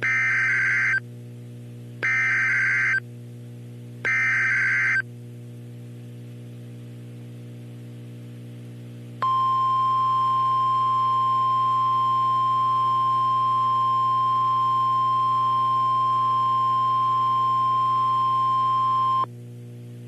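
NOAA Weather Radio Emergency Alert System signal. It opens with three one-second bursts of SAME digital header data, a two-tone electronic screech repeated every two seconds. After a pause comes the steady 1050 Hz warning alarm tone, held for about ten seconds, and it marks the start of a hurricane warning broadcast. A constant low hum from the receiver runs underneath.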